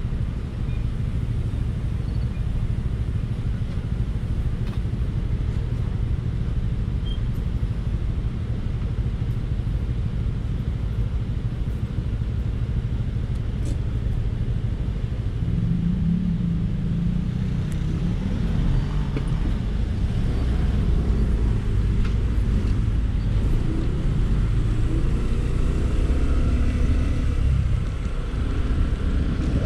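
Steady low rumble of surrounding road traffic and wind on the microphone of a camera riding on an electric scooter. About two-thirds of the way in it grows a little louder, with rising and falling engine and motor tones as the scooter gets moving through traffic.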